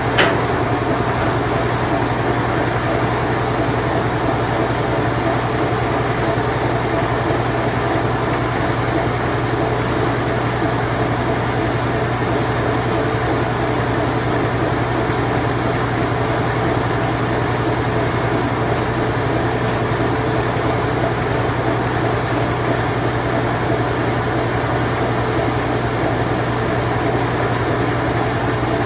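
Whirlpool Imperial Clean Touch washing machine running its spin cycle: a steady, even motor hum over a broad wash of mechanical noise, with one brief click right at the start.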